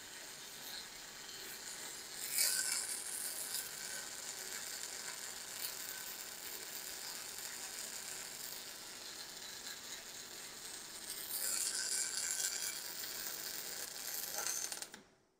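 A robotic arc-welding torch welding a seam, its arc running steadily with louder stretches about two and a half seconds in and again around eleven to thirteen seconds, then cutting off abruptly just before the end as the weld finishes.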